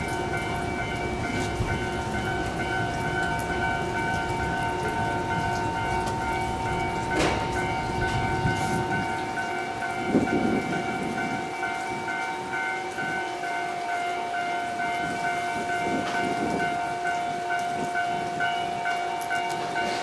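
JR 211 series electric train standing at the platform, its onboard equipment giving a steady hum of several high tones. A low rumble fades out about midway, with a sharp clack about seven seconds in.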